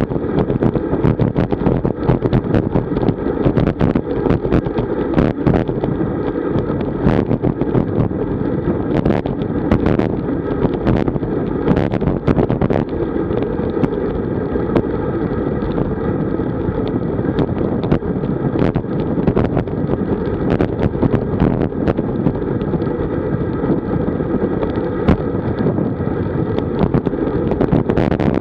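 Wind buffeting the microphone of a bike-mounted camera on a road bike moving at about 35 km/h: a loud, steady low rumble. Short clicks and knocks are scattered throughout, from the bike and camera rattling over the road surface.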